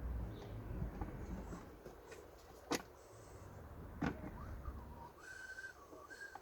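A person whistling a tune softly, starting about two-thirds of the way in, after two sharp clicks about a second and a half apart.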